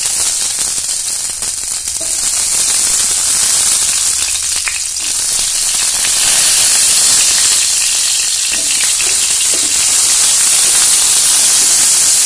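Salted eggplant pieces sizzling in hot mustard oil in a frying pan: a steady, loud hiss. It grows louder about two seconds in and again around six seconds as more pieces go into the oil.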